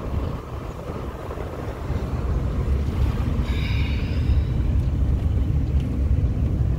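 Car driving along a paved road: steady low rumble of engine and tyres, with wind buffeting the microphone, growing louder about two seconds in. A brief high-pitched sound comes about halfway through.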